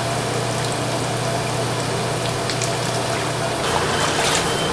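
Tap water running into a stainless steel sink full of water while gloved hands swish leafy greens about. Splashing grows about four seconds in as a bunch is lifted out and water pours off it, over a steady low hum.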